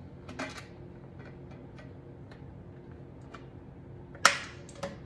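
A metal springform cake pan being handled, with light taps and clicks, then a sharp metallic clack about four seconds in and a smaller one just after.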